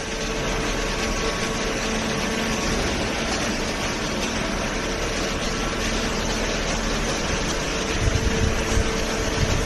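Hydraulic cardboard baler running, a steady machine hum with a couple of held tones, and low uneven thumping in the last couple of seconds.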